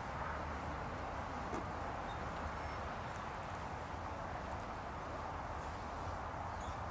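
Steady outdoor background noise: an even hiss with a low rumble beneath it and a few faint ticks.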